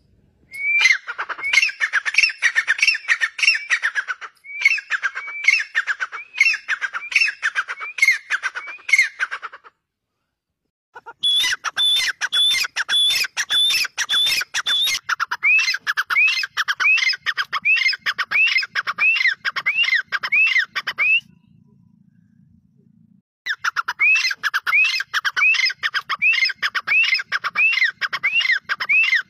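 Grey francolins calling: loud runs of rhythmic, repeated notes, about two a second, in three bouts with short breaks between them. The middle bout opens with a run of higher, shriller notes.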